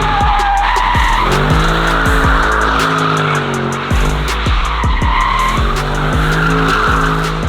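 Car tyres squealing as they spin against the pavement, rising and fading in two long waves, over background music with a steady beat.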